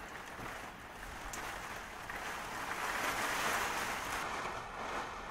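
Steady hiss of rain falling, with a few faint drip ticks, swelling louder for about two seconds in the middle.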